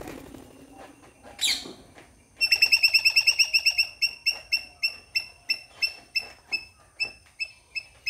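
A small animal's chirping call: a run of sharp, high chirps at one pitch, about six a second at first and slowing to about three a second, starting about two and a half seconds in. A single quick rising squeak comes just before it.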